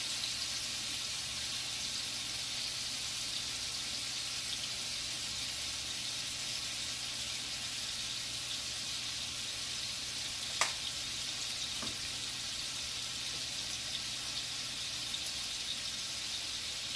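Steady sizzle of food frying in hot grease on the stove. A sharp click about ten and a half seconds in, and a fainter one just after.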